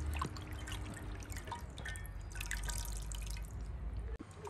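Water dripping and splashing as hands wash and squeeze raw fish pieces in a brass basin of water, many small scattered drips.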